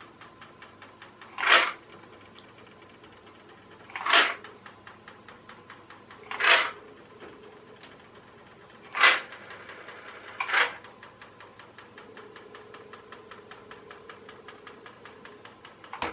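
Small electric motor from an RC toy car running a toy boat's propeller in bathwater, with a fast, even ticking rattle. About every two to three seconds there is a much louder short swish.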